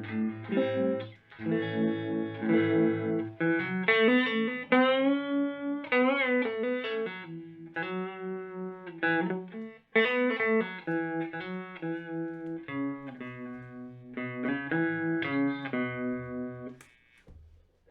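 Electric guitar played through a Moen Jimi Nova univibe-style chorus/vibrato pedal, strummed chords and single-note lines with string bends and wavering pitch.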